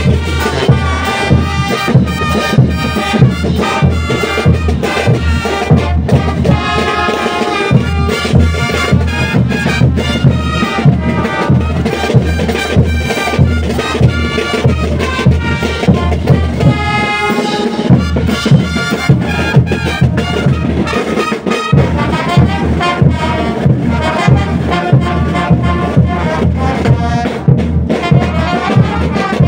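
Brass band playing festival music, brass melody over a steady, regular beat.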